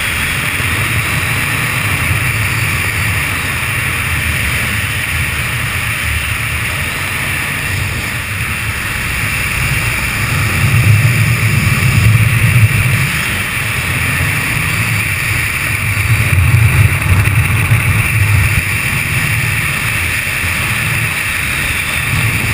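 Wind rushing and buffeting on the camera microphone in flight, a steady rush with a low rumble that swells about halfway through and again a few seconds later.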